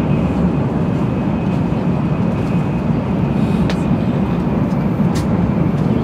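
Steady low rumble of a Tokaido Shinkansen running, heard from inside a passenger car, with a couple of faint ticks in the second half.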